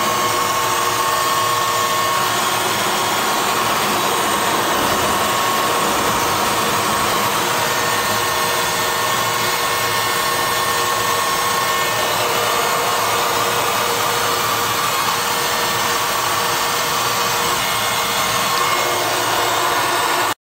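Steady rushing noise inside a jet aircraft's cockpit in flight, airflow and engine together, with a faint steady whine.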